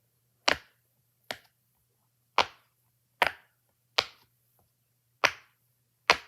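A 10 by 10 silicone pop it fidget toy having its bubbles pushed through one at a time. Seven sharp pops come about once a second, a little unevenly spaced.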